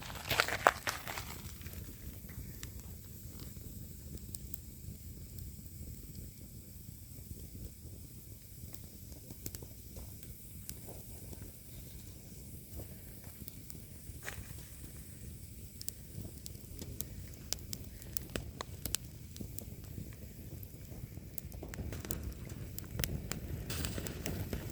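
Campfire burning: a steady hiss with scattered sharp crackles and pops, and a louder knock in the first second.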